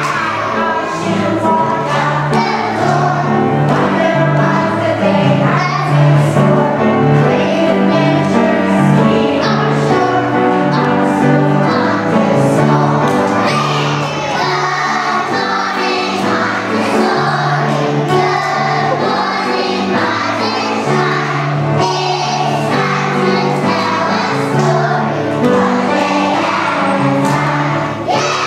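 A group of young children singing a song together over instrumental accompaniment whose low notes change in a steady rhythm.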